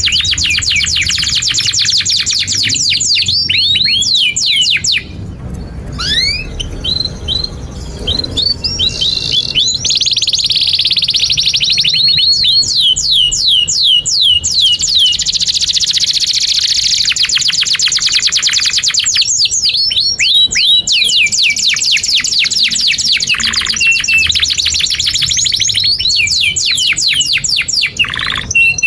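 Domestic canary singing a long, fast song: rapid trills and rolls of downward-sweeping notes, many a second, with a short break about five seconds in.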